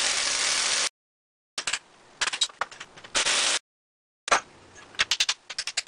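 Pneumatic impact wrench running in short bursts while spinning the castle nuts off an old Model T rear spring, with sharp metallic clinks of sockets, nuts and tools between the bursts. The sound cuts out completely between the bursts.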